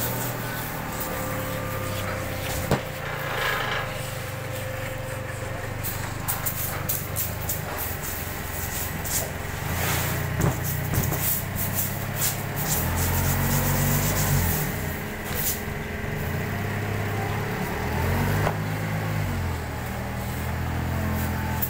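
Komatsu forklift engine running steadily, its pitch rising and falling twice in the second half as it revs while carrying a load. Scattered sharp clicks and taps throughout.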